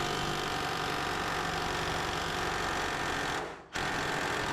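Cordless impact wrench hammering on a screw-in suspension ball joint: one long run of about three and a half seconds, a brief pause, then a shorter run near the end. The joint is not turning any further, so the wrench hammers without driving it in.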